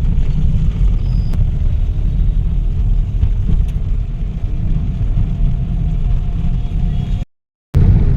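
Low, uneven rumble of a moving vehicle with wind buffeting the microphone. It cuts out abruptly for about half a second near the end.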